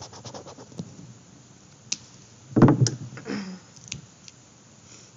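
Felt-tip highlighter scratching across paper in quick strokes, stopping within the first second. About two and a half seconds in comes a thump with a couple of sharp clicks as the highlighters are handled on the desk, followed by a few small clicks.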